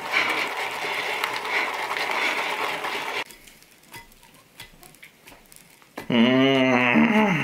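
Bundled-twig whisk beating egg whites for icing in a ceramic bowl, a fast, dense rustle that stops suddenly about three seconds in and is followed by a few faint scrapes. About six seconds in, a man lets out a long, wavering moan.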